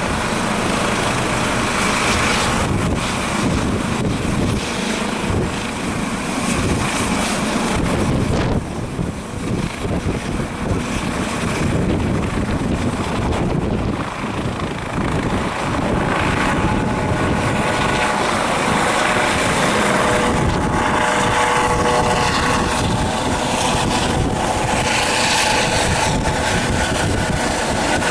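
Eurocopter EC135 P2+ helicopter's rotor and twin turbines running loudly as it powers up on the helipad and lifts off. From about halfway through, a steady whine with several tones comes in over the rotor noise as it takes off and climbs.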